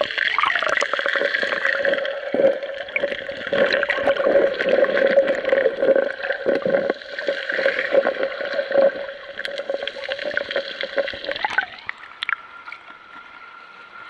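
Sea water heard from under the surface, muffled: a dense, fluttering gurgling and rushing with a steady hum beneath it. About twelve seconds in the microphone comes out of the water and the sound drops suddenly to quieter open-air sea ambience.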